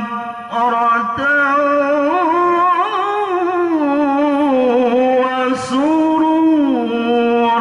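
A male qari chanting the Quran in the melodic tilawah style through a microphone, holding long ornamented notes that slide and waver between pitches. Near the end the phrase settles down onto a lower held note.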